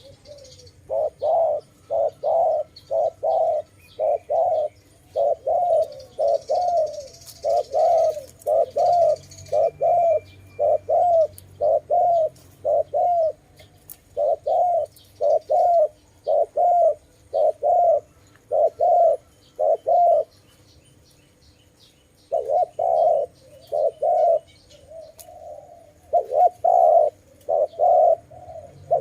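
Dove cooing in a long series of short, repeated coos, a little more than one a second, broken by a pause of about two seconds past the two-thirds mark. Faint high chirps sound behind it.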